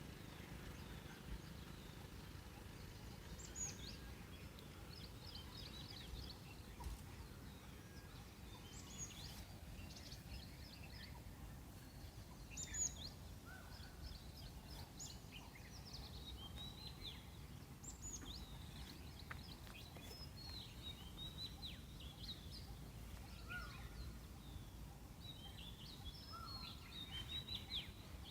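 Forest ambience: several birds chirping and calling with short, quick, downward-sweeping notes, scattered throughout over a faint low background rumble.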